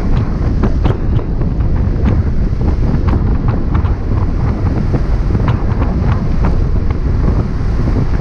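Wind buffeting the microphone of a top-down 2001 Porsche Boxster on the move: a steady low rumble of wind and road noise broken by frequent short crackles.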